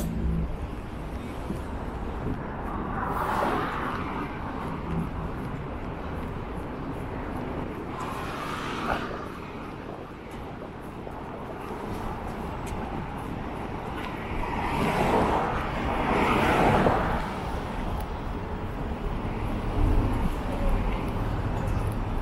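Outdoor road traffic: a steady rumble, with vehicles passing by three times, each swelling and fading over a second or two.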